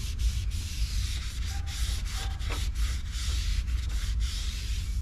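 A rag rubbing over a brake rotor's surface, wiping it down with brake cleaner, heard as a stop-and-go hiss of strokes over a steady low rumble.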